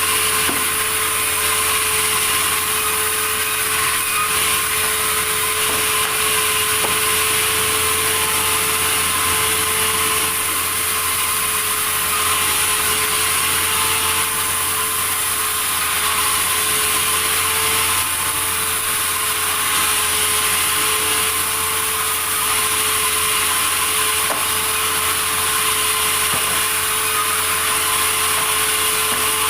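Sawmill saw cutting through wood, a continuous steady sound with a constant tone underneath and no pauses.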